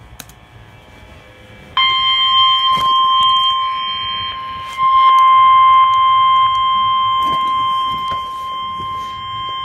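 NOAA Weather Radio 1050 Hz warning alert tone: a single steady high tone with overtones that starts sharply about two seconds in and holds. It is the signal that a new warning message is about to be read.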